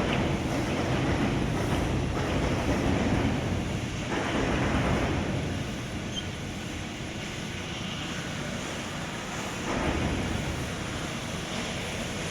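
Steady industrial machinery noise, a broad mechanical rumble that eases off about five seconds in and swells again near the end.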